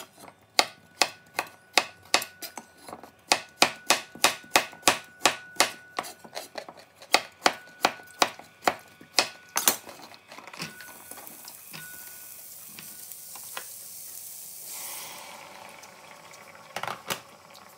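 Knife chopping carrots on a wooden cutting board, a steady run of sharp strikes about three to four a second. About ten seconds in the chopping stops and sliced carrots sizzle with a steady hiss in a hot pan, followed by a couple of knocks near the end.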